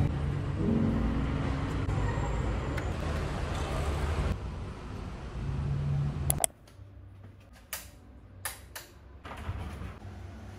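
Steady road-traffic noise with a low rumble, fading over the first few seconds, then cutting off abruptly to a quiet room with a few sharp clicks and taps.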